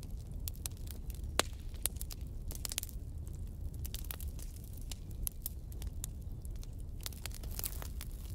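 Grooming brush raking through a cat's thick long fur, a crackling rasp with many small sharp clicks, over a steady low hum.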